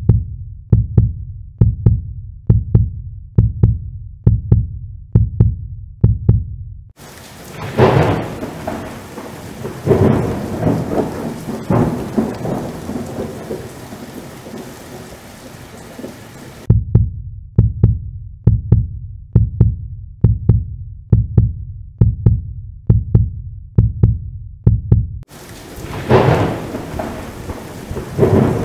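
Thunder rumbling over steady rain, broken up by hard cuts to a deep, steady drumbeat of about two beats a second. The beat runs for the first seven seconds and again from about 17 to 25 s; thunder with rain fills the rest, with big rolls about 8 and 10 seconds in.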